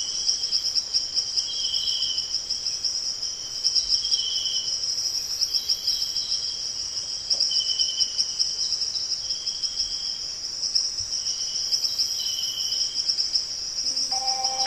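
Crickets chirping in a steady, high, pulsing trill, with a lower chirping in short bouts about every second. Music comes in near the end.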